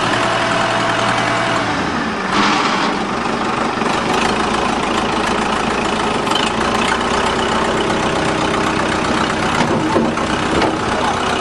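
A vehicle engine running steadily at low speed, with a brief noisier surge about two seconds in.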